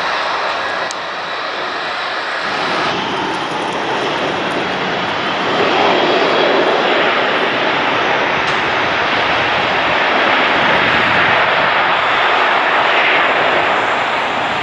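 Steady jet engine noise from airliners, changing in the first few seconds, then the sound of a Boeing 737-800 approaching to land, louder from about six seconds in.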